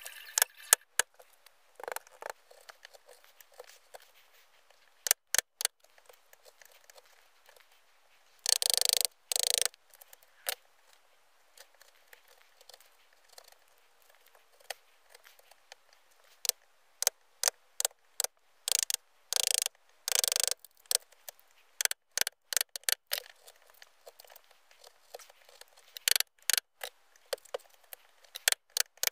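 Wood chisel, pushed by hand, paring and chopping out the waste between hand-cut dovetails in a softwood board. It makes many short crisp cuts and scrapes, with two longer paring strokes, one about a third of the way in and one about two-thirds in.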